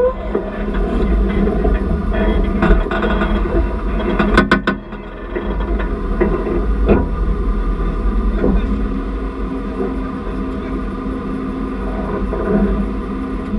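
Off-road vehicle engines running at low speed while rock crawling over boulders, with a quick run of knocks about four and a half seconds in.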